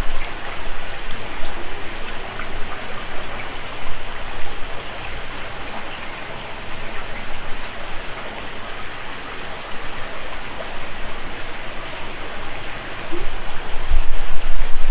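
Shallow creek water running steadily over rocks in a small cascade, with a faint steady high whine over it. A low rumble on the microphone comes up near the end.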